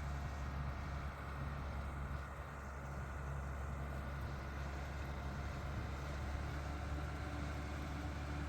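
John Deere combine's diesel engine running steadily, a low even hum.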